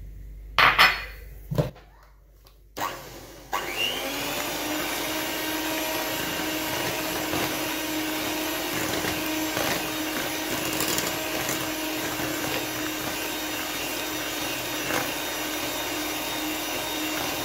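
Electric hand mixer switching on about three and a half seconds in and running steadily, its beaters whisking flour into cake batter in a glass bowl. A couple of sharp knocks come in the first two seconds, before the mixer starts.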